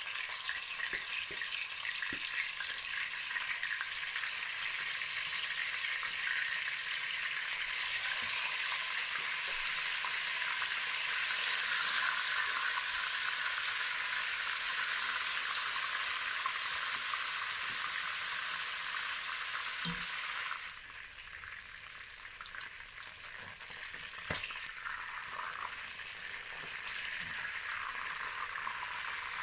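Pieces of croaker fish deep-frying in hot mixed palm and vegetable oil in a pot: a steady, dense sizzle. It drops quieter about two-thirds of the way through, then builds again, with a couple of short knocks.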